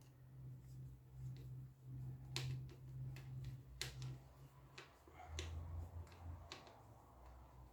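Four or five sharp clicks and taps of fan parts being handled and fitted together, over a faint steady low hum.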